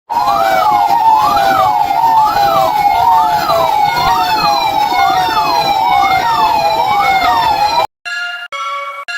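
EAS-style emergency alert alarm: a loud siren tone wailing up and down about once a second, over a noisy bed with repeated falling tones. It cuts off suddenly near the end and gives way to short chord-like beeps, about two a second.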